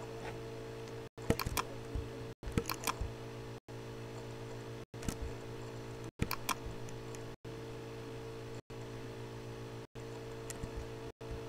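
Computer mouse clicking in scattered single clicks and small clusters over a steady electrical hum. The hum cuts out briefly about every second and a quarter.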